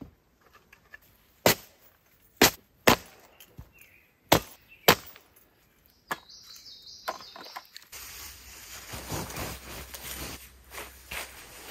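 Hatchet chopping wood on a chopping block: five sharp strikes in the first five seconds. Then rustling as camping gear and a tent are packed away.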